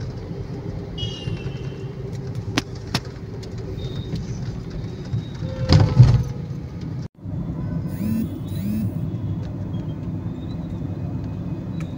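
Car cabin noise while driving through city traffic: a steady low engine and road rumble, with a few light clicks and a loud short thump about six seconds in.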